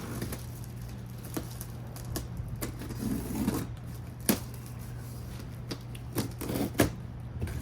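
Irregular clicks, knocks and rustling of a cardboard box and its packaging being handled and opened, with two louder knocks about four and a half and seven seconds in, over a steady low hum.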